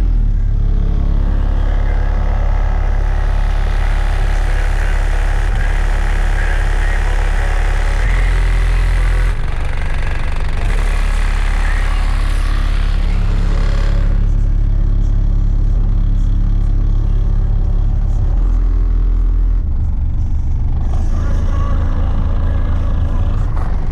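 Car audio subwoofers playing loud, deep bass notes. Each note holds steady for a few seconds, then the pitch shifts to the next.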